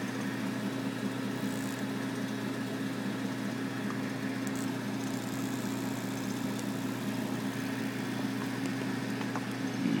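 Steady electrical hum with a hiss over it from a homebuilt microwave ion source running, its magnetron's high-voltage transformers energised.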